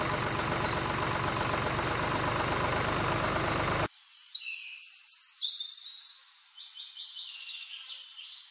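A motor running steadily with a fast, even chug, cutting off abruptly about four seconds in. Birds chirp throughout, and after the cut only their thin, quieter chirping remains.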